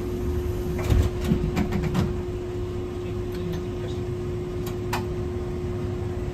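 Inside a Hankai Tramway Type 701 tram: a steady electrical hum over a low rumble, with a cluster of sharp clicks about a second in and two more around five seconds in.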